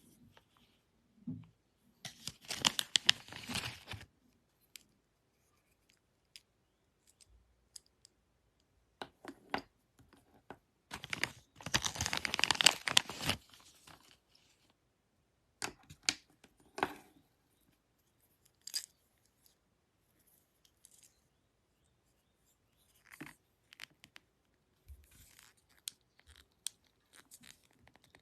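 Slime being stretched and pressed: two long spells of dense crackling and popping, about two seconds in and again around eleven seconds, with scattered single pops and clicks between.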